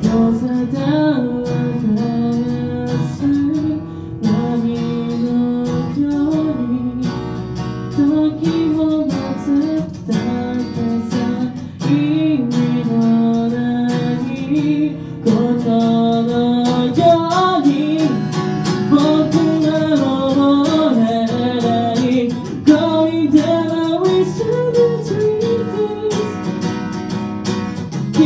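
A solo voice singing a melody over a strummed acoustic guitar, played live.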